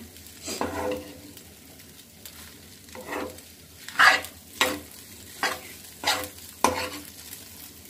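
Steel spoon stirring and scraping fried rice around a nonstick pan, about seven irregular scrapes, most of them in the second half, over a faint sizzle of the rice frying.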